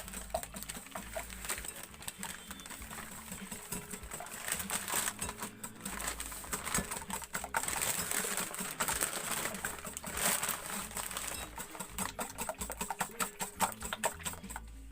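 Rapid, irregular clicking and tapping of a utensil beating a runny egg, cream and milk mixture in a bowl.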